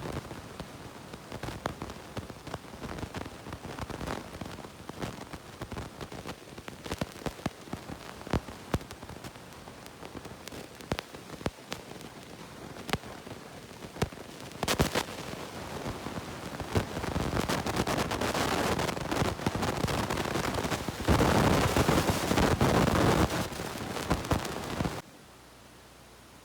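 Hand work on a rusty metal tool: irregular scraping and clicking of metal being worked, becoming a denser, louder scrubbing noise in the second half that cuts off suddenly near the end.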